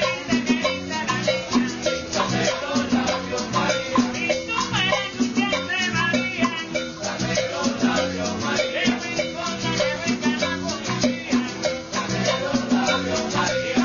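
Salsa music with a steady beat, maracas and a singing voice.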